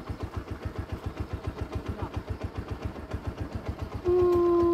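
Motorcycle engine idling with an even, steady putter. Near the end a person's voice comes in with a long held sound, louder than the engine.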